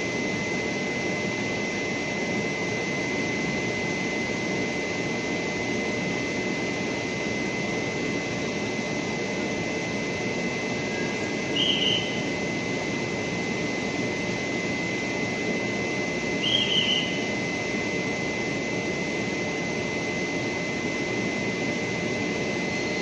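Taiwan Railways EMU3000 electric multiple unit coming into the station on a test run: a steady rumble with a thin, even whine. Two short high squeals come about twelve and seventeen seconds in.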